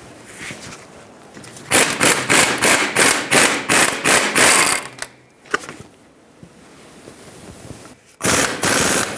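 A 1/2-inch impact gun hammering at the wheel-bearing mounting nuts on a rusty steering knuckle. It runs in one burst of about three seconds in quick pulses, and a second burst starts near the end.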